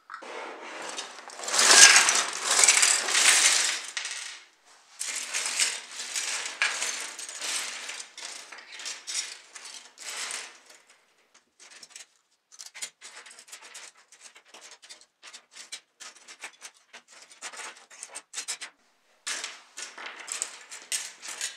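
Small plastic and metal parts of a dismantled model car clattering together on a tabletop: a dense, loud clatter for the first four seconds or so, a second stretch to about ten seconds in, then scattered lighter clicks as they are picked through by hand.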